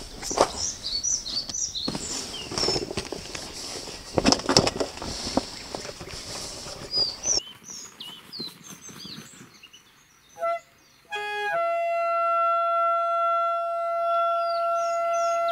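Birds chirping over irregular rustles and knocks of gear being handled. About seven seconds in the background drops away abruptly, and from about eleven seconds in, music with long held notes plays.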